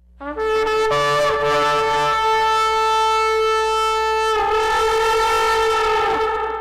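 A horn sounding one long, loud, held note that keeps a steady pitch, shifts slightly in tone a little past the middle, and stops near the end with a brief ring-out.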